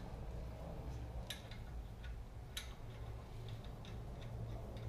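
Light, irregularly spaced metal clicks and ticks, about seven over a few seconds, as nuts are started by hand on the bolts holding an STI R180 rear differential in place.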